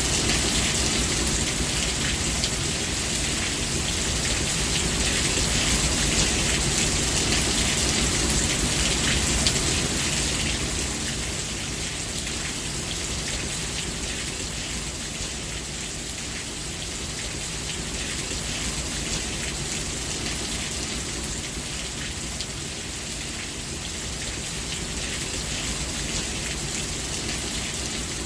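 Steady rain falling, a dense patter of drops, easing slightly after about ten seconds.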